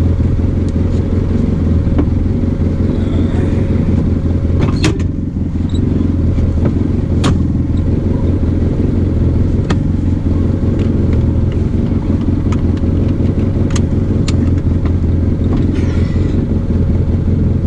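Arctic Cat Wildcat Trail 700 side-by-side's engine running steadily while riding, with a few sharp knocks and rattles from the machine scattered throughout.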